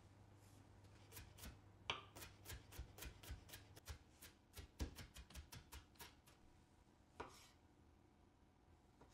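Kitchen knife mincing a Japanese long onion on a plastic cutting board: quick taps of the blade striking the board, about four a second, stopping about six seconds in, with one more cut a second later.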